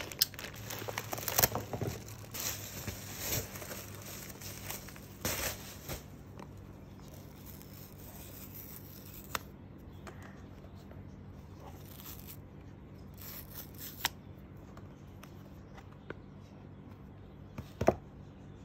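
Plastic courier mailer bag being torn open and crinkled for the first few seconds. Then quieter handling of a cardboard phone box, with a few sharp clicks and taps and a louder knock near the end.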